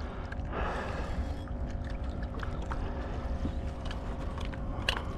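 Water and a low wind rumble around a fishing kayak, with a steady faint hum, a louder splashy rush about half a second in, and a few light clicks.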